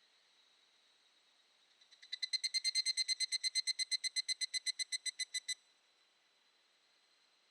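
Evening cicada (higurashi, Tanna japonensis) calling: a fast run of ringing, high notes, about ten a second, that swells in quickly and stops abruptly after about three and a half seconds. A faint, steady high drone goes on before and after it.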